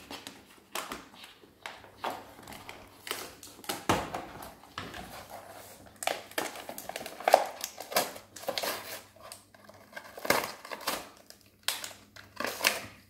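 Toy packaging being opened by hand: irregular crackling, crinkling and clicking of plastic and cardboard, with a few sharper snaps.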